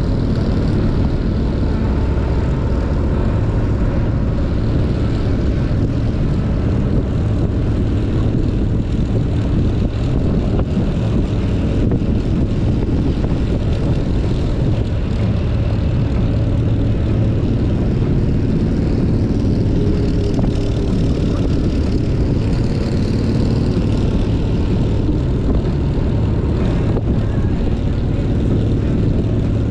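Motorcycle engine running at a steady cruising speed, with heavy wind noise on the microphone, making a constant low drone with no gear changes or revving.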